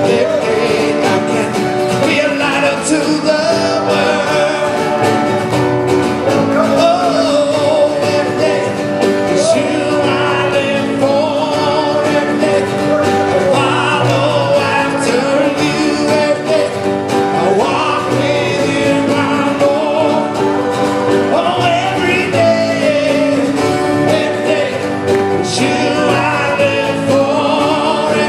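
Live worship band playing and singing a song: a man's and a woman's voices over electric guitar, drums and keyboard.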